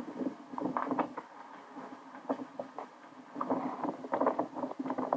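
A burning house crackling and popping irregularly, over a steady low hum.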